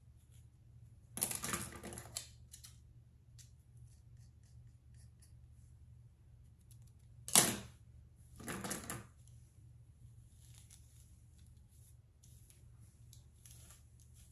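A comb and fingers working through thick, dry natural hair: short scratchy rasps about a second in and again near nine seconds, with a sharp click about seven seconds in, the loudest sound, and faint rustling and ticking between.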